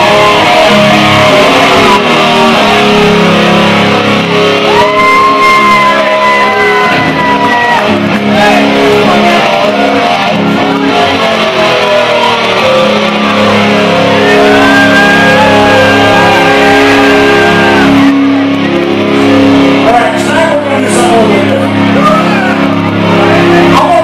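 Live rock band with an electric guitar playing long, held lead notes that slide up into pitch over a steady sustained chord, loud throughout.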